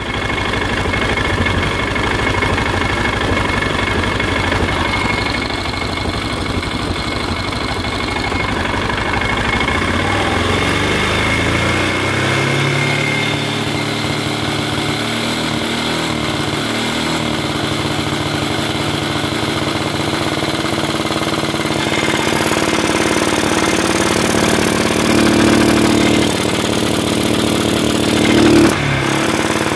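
Stels 500GT ATV engine running at idle, its pitch rising about ten seconds in as the revs come up, then held higher, with a few short surges near the end. It is running on an aftermarket Grishko ignition that would not let it rev past 4400 rpm and made it backfire into the muffler.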